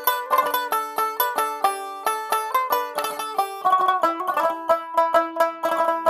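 Background instrumental music: a quick plucked-string melody of short, evenly spaced notes.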